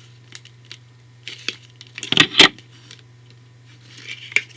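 Packaging of a ShengShou 3x3 cube being handled and opened: light plastic clicks and rustles, with a louder scraping, tearing burst about two seconds in and a smaller cluster near the end. A steady low hum lies underneath.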